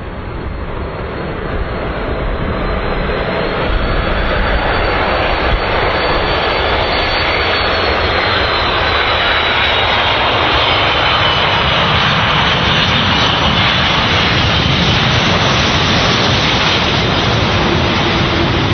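Four-engined jet airliner landing: the jet engine noise grows louder over the first few seconds as it comes in, then runs loud and steady as it rolls down the runway. A faint whine falls in pitch about ten seconds in.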